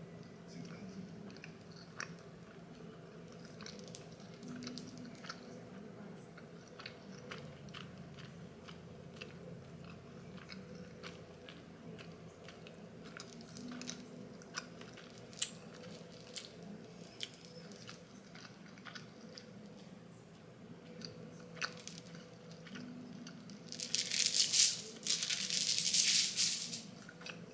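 Close-up mouth sounds of a person chewing food, with soft clicks scattered throughout. Near the end come two loud bursts of rustling.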